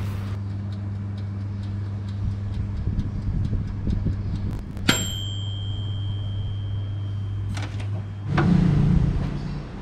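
Electric oven running with a steady low hum while the bread bakes. About five seconds in, a click sets off a single clear high timer tone that holds for nearly three seconds: the signal that the baking time is up. Near the end the hum stops and a louder, lower sound follows for about a second.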